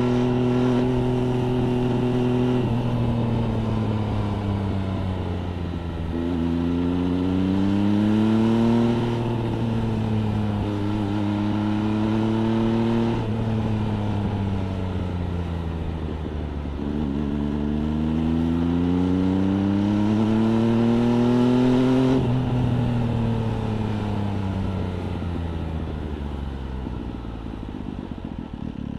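MV Agusta Brutale 800 RR's three-cylinder engine through an FF by Fresco aftermarket exhaust, heard from the rider's seat as the bike is ridden. The revs fall away, then climb and fall off twice more as the throttle is opened and rolled off, and near the end the engine note dies down.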